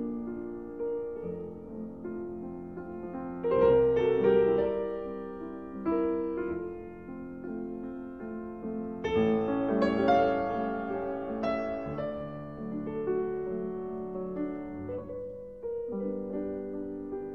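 Slow piano music: held chords and single notes, with louder chords struck about three and a half seconds in and again around nine to ten seconds.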